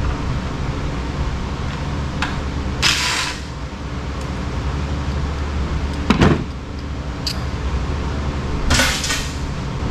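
Metal parts of a scrap generator being worked apart by hand: two brief scrapes and a sharp clunk about halfway, over a steady low hum.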